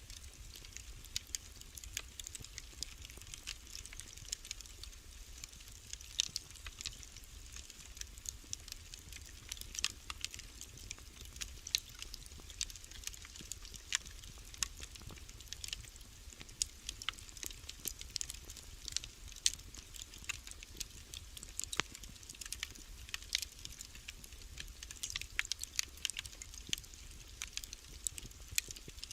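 Wood fire in a fireplace crackling, with frequent small sharp pops and snaps at irregular intervals over a low steady rumble of the burning fire.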